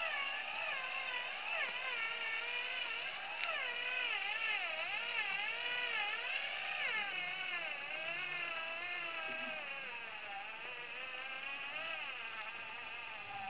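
Radio-controlled 4x4 model truck's electric motor and gearbox whining under load, the pitch rising and falling again and again as the throttle is worked.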